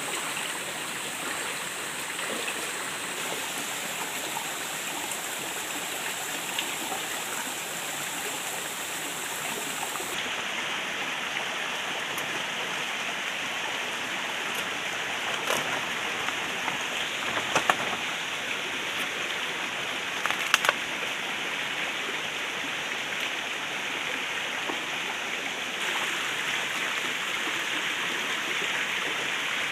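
Food frying in hot oil: a steady sizzle, with a few sharp clicks around the middle.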